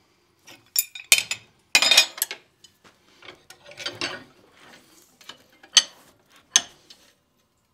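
Steel hand tools, an adjustable wrench and then pliers, clanking and clinking against a hot 1/4-inch square steel bar held in a bench vise as an S hook is bent. The sharp metal knocks come in a run, thickest about two seconds in, with single clanks near the end.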